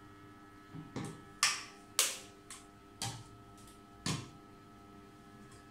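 A run of about seven sharp clicks and taps at uneven spacing over a faint steady hum, like small hard objects being handled.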